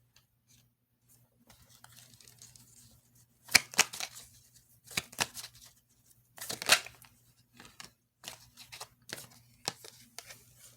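Tarot cards being handled: a few short, sharp papery snaps and rustles in small clusters, the loudest about three and a half, five and almost seven seconds in, over a faint steady electrical hum.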